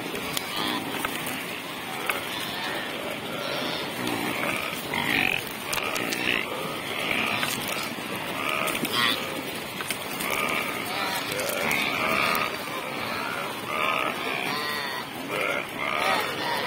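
A herd of saiga antelopes calling as they cross a river, with many short overlapping grunting calls that keep coming.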